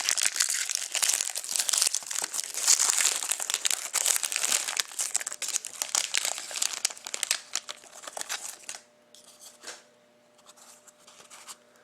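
Plastic card packaging being handled and crinkled, a dense crackly rustle for about eight seconds that then thins to a few faint rustles.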